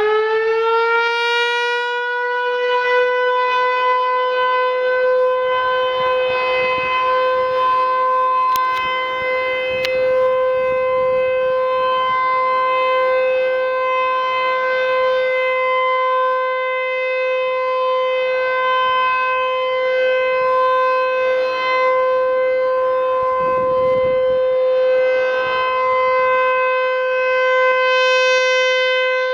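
ACA T-128 outdoor tornado warning siren sounding up close: it finishes winding up to full pitch in the first second or two, then holds one steady, loud tone.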